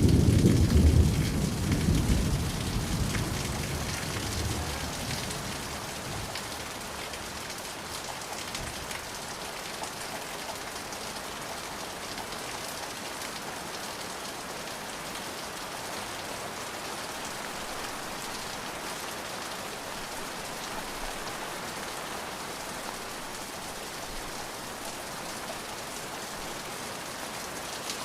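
Rain falling steadily, with a low thunder rumble in the first seconds that dies away over about five seconds.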